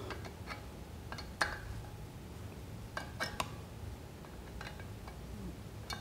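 Scattered light metallic clicks and clinks, about a dozen, the sharpest about a second and a half in, from a flat-head screwdriver and an angle grinder's metal guard as the guard is worked loose by hand.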